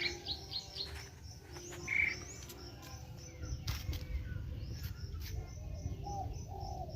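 Small birds chirping: a quick run of short falling chirps at the start, then scattered calls, over a low rumble.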